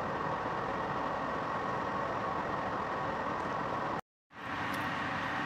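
Steady drone of running industrial machinery, with a few steady tones held under an even hum. It cuts out completely for a moment about four seconds in, then returns unchanged.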